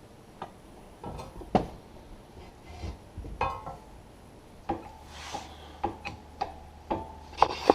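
Metal parts of a tractor seat being handled and fitted by hand: scattered clicks, knocks and light clinks, some briefly ringing, with a short scrape or rub.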